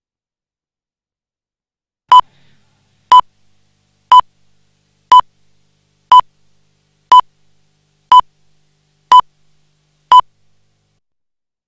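Nine short electronic beeps at one steady pitch, evenly spaced about a second apart, with silence before and after.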